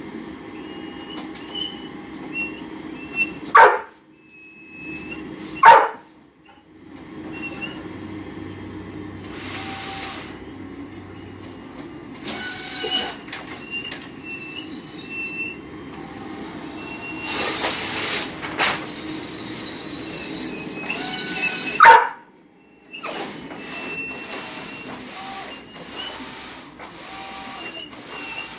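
Golden retriever barking at a printing plotter, with the plotter's mechanism running steadily underneath. Three barks, about 3.5, 6 and 22 seconds in, are much louder than the rest.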